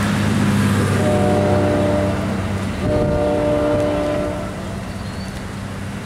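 Horn of a PL42AC diesel locomotive pulling away into the distance, sounding two long blasts, the second about three seconds in. Under the horn is the low steady rumble of the departing train, which fades away after about four and a half seconds.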